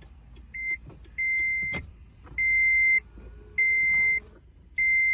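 Toyota Prius warning chime beeping at a steady pace, about one half-second beep every 1.2 seconds, as the car is powered on. A single knock sounds about a second and a half in.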